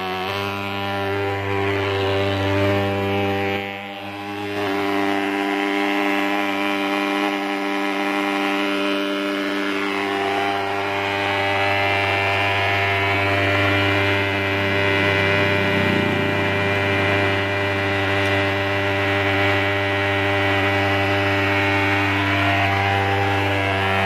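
Swingfog thermal fogger's pulse-jet engine running, a loud, steady buzzing drone as it puffs out insecticide fog, with a brief dip in level about four seconds in.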